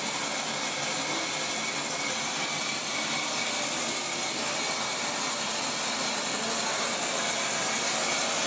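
Steady machine hiss with a faint high whine running through it, unchanging throughout.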